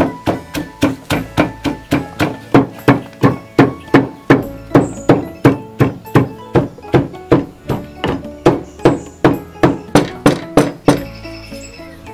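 Wooden pestle pounding black peppercorns in a wooden mortar: steady rhythmic thuds, about three a second, stopping about a second before the end, over background music.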